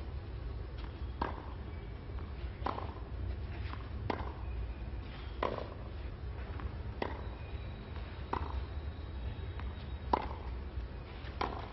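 Tennis ball struck back and forth in a baseline rally with wooden racquets, one sharp hit about every second and a half, over a low steady hum.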